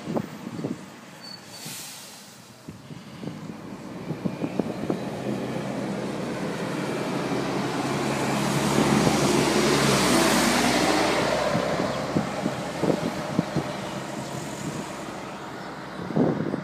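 Double-decker bus's diesel engine and tyres as it drives past. The sound grows steadily, is loudest about nine to ten seconds in as the bus passes close by, then fades as it pulls away.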